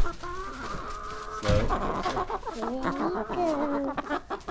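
Several laying hens clucking close by, with overlapping drawn-out calls that glide in pitch. A couple of low thumps come at the start and about a second and a half in.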